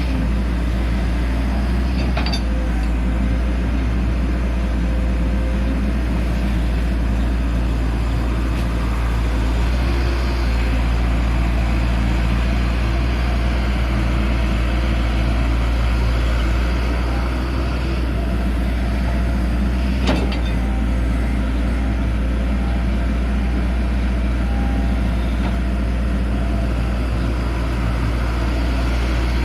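Excavator's diesel engine running steadily under load, with two sharp knocks: one about two seconds in and another about twenty seconds in.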